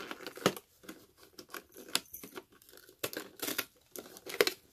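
Cardboard advent-calendar door being torn open and the box handled: an irregular run of sharp tearing, crackling and clicking noises, loudest about half a second in and near the end.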